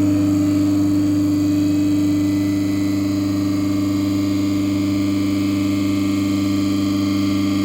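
Dorin KP1500CS semi-hermetic piston refrigeration compressor running steadily on a test run, a loud even hum with no knocks or changes in speed.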